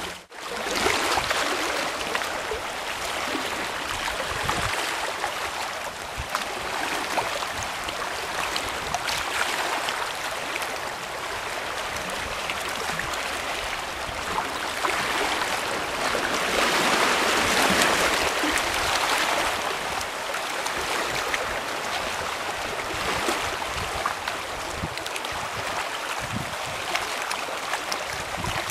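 Sea water washing and splashing around shoreline rocks: a steady rushing that swells and eases, loudest a little past the middle.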